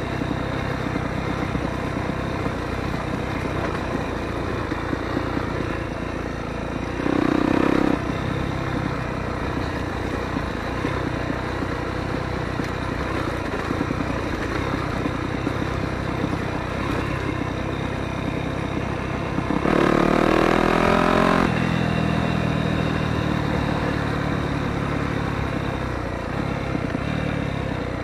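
Motocross bike engine running as the bike is ridden, with a short louder burst of throttle about seven seconds in and a longer rev about twenty seconds in, its pitch climbing.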